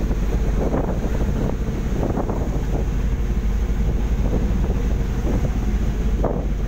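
Steady wind buffeting the microphone over the continuous low rumble of a fishing vessel at sea.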